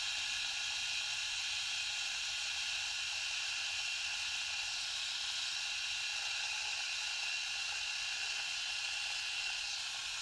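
Cordless three-head rotary electric shaver running on dry chin stubble: a steady hissing buzz with a faint high whine.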